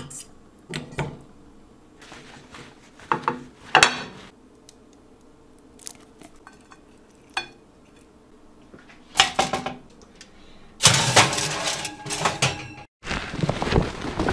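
Metal tongs clinking and scraping against a stainless steel pot and a ceramic plate in a series of separate clicks, as cooked pieces are lifted out and set down. About eleven seconds in comes a longer, louder rustling; after a short break near the end, a heavy plastic tarp rustles as it is handled.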